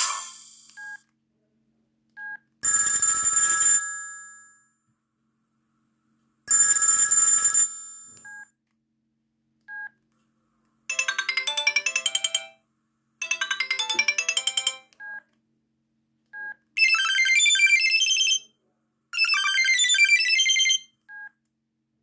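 Sony Ericsson Z600 phone's speaker previewing its built-in ringtones: a melody fades out, short key beeps sound as the list is scrolled, then two separate short bursts of an old-style telephone bell ring. After that come two short polyphonic jingles, each played twice.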